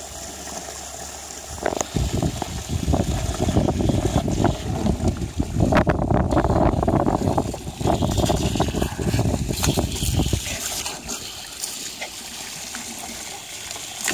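Water jetting from a garden hose nozzle while a West Highland White Terrier bites and snaps at the spray, water splashing at its mouth and falling onto the pond surface. Loud and busy from about two seconds in until about ten seconds, then quieter and steadier.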